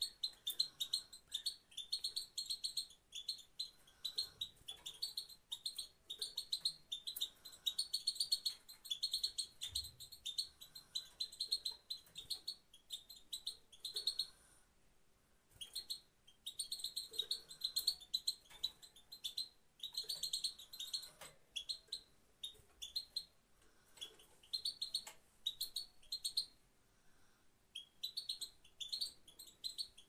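Female goldfinch calling: quick runs of high, twittering chirps, breaking off briefly about halfway and again near the end. These are the calls a female makes, kept to stir a male goldfinch into song.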